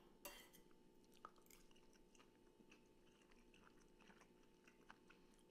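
Faint chewing of a mouthful of fried egg, spinach and toast, with soft, scattered little crunches and clicks.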